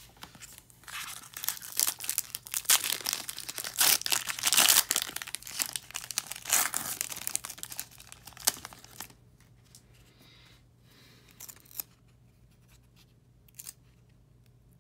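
Foil wrapper of a Topps Chrome trading-card pack being torn open and crinkled by hand, a dense crackling and tearing that stops about nine seconds in, after which only a few faint clicks remain.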